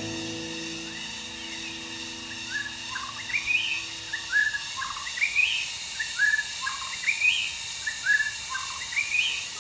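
White-rumped shama singing a short whistled phrase of a few notes ending on a rising high note, repeated four times at even spacing. A steady high background drone runs underneath.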